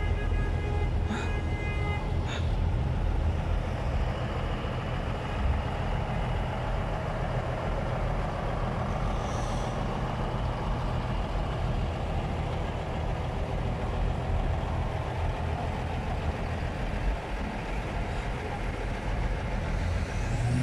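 Diesel engines of parked semi-trucks idling, a steady low rumble, with a high held tone in the first couple of seconds.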